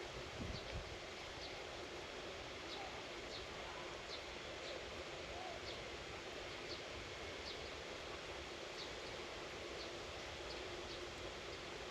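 Quiet outdoor ambience: short high chirps, typical of small birds, repeat irregularly about once a second over a steady faint hiss. A brief low rumble comes about half a second in.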